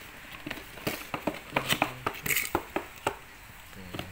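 Cardboard box flaps being pulled open and handled by hand: a quick series of sharp cardboard rustles, scrapes and clicks, thickest through the middle.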